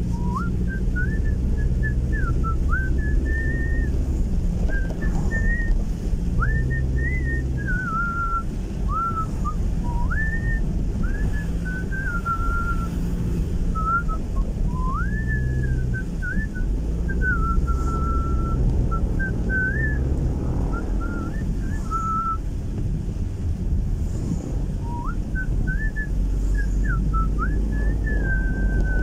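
A person whistling a tune in a single clear tone, phrases sliding up and down in pitch, with a pause of a couple of seconds after about twenty-two seconds. Under it runs the steady low rumble of the car heard from inside the cabin.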